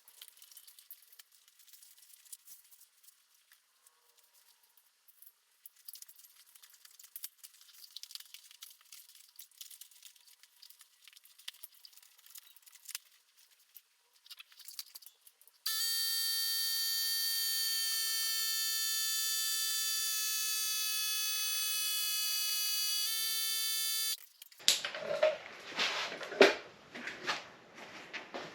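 Small electric tire inflator pumping air into a bicycle inner tube: a steady buzzing motor drone whose pitch sags slightly as pressure builds, running about eight seconds before cutting off suddenly. Faint clicks of handling the wheel come before it, and louder knocks and clicks after.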